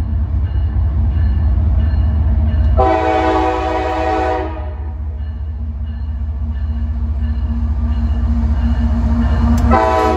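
Approaching CSX freight train's diesel locomotives rumbling, growing louder as they near. The locomotive's air horn sounds one long blast about three seconds in and starts a second blast near the end, the horn signal for a grade crossing ahead.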